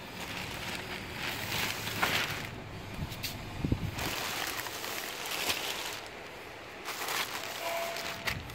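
Thin plastic bag around a pack of toilet paper rolls crinkling and rustling in irregular bursts, with sharp crackles, as a hand squeezes and pulls at it.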